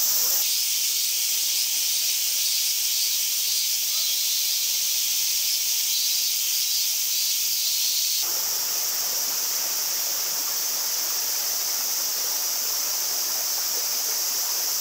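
Shallow spring-fed stream running over gravel, a steady high hiss that abruptly becomes fuller and lower about eight seconds in.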